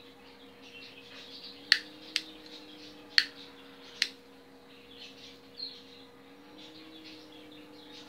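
Four sharp clicks, two close together about two seconds in and two more about a second apart, from a metal novelty lighter being worked in the hand. Faint, quick bird chirping goes on throughout, over a steady low hum.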